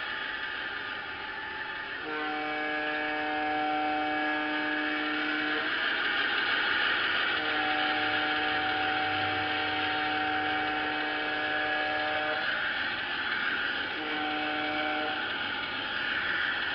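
G scale SD45 model diesel locomotive's onboard sound system blowing a multi-note air horn: two long blasts, then a short one. Under it runs a steady whir of the model running along the track.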